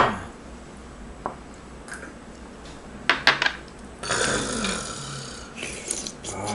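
Dishes and glasses knocking on a table: a sharp clink at the start and a few quick knocks about three seconds in. They are followed by a drawn-out rough throaty noise lasting over a second.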